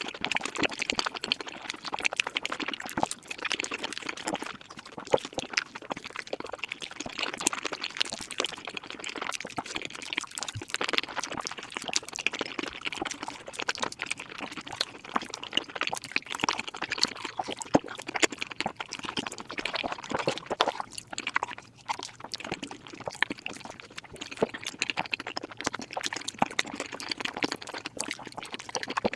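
Mukbang eating sounds played back at five times speed: wet chewing and smacking mouth noises packed into a dense, rapid run of clicks.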